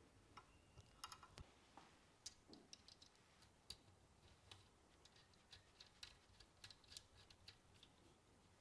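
Near silence with faint, irregular small clicks and ticks, a few a second.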